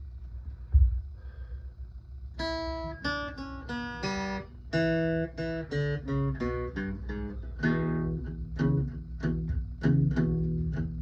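Acoustic guitar playing a song intro: a low rumble and a thump, then single picked notes from about two seconds in, building into fingerpicked chords over a bass line.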